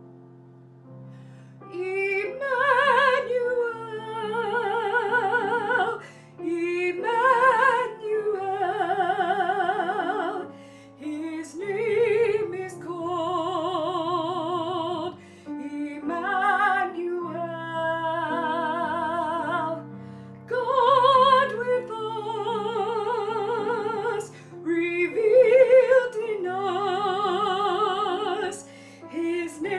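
A woman singing a prayer chorus solo, holding long notes with strong vibrato, over piano accompaniment.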